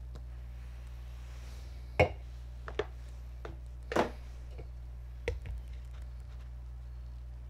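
Several short, sharp knocks and taps, about two, three, four and five seconds in, from a pint glass and an aluminium beer can being handled on a tabletop, over a steady low hum.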